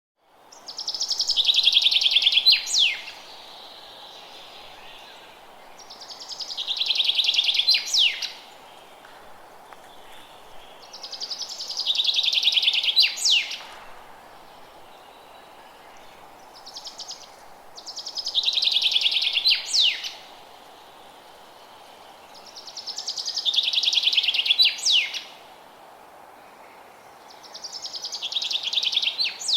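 A songbird repeating the same song phrase six times, about every five and a half seconds. Each phrase is a rapid, fast-pulsed trill of about two seconds that ends in a quick rising note, over a steady faint background hiss.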